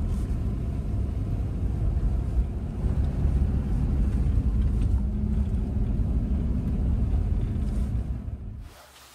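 Steady low rumble of a running vehicle, which stops suddenly shortly before the end.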